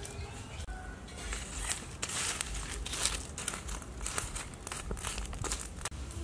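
Charcoal embers being stirred with a metal poker or tongs: irregular crackling and small clinks of coals shifting, denser from about a second and a half in.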